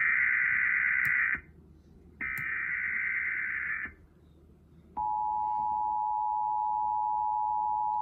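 Emergency Alert System Required Monthly Test: two bursts of SAME digital header data, each under two seconds long with a short gap between them. About five seconds in, the steady two-tone EAS attention signal starts.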